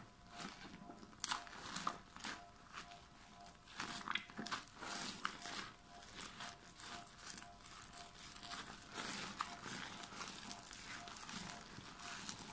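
Hands squeezing and kneading a soaked, foamy lump of soap in soapy water: wet squishing with many irregular crackles from the foam.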